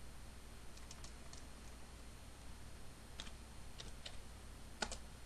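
Computer keyboard keys pressed in a few sparse, faint clicks: a small cluster about a second in and several more in the last two seconds, the sharpest just before the end. A steady low hum runs underneath.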